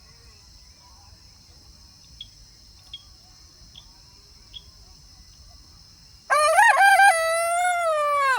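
Rooster crowing once, a loud crow of about two seconds that begins about six seconds in and falls in pitch at its end. Before it, a few faint short high chirps sound over a steady high hum.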